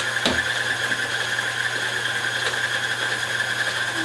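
Tilt-head stand mixer running steadily at speed, its motor giving a constant hum with a high whine over it, mixing cookie dough. A brief knock a fraction of a second in.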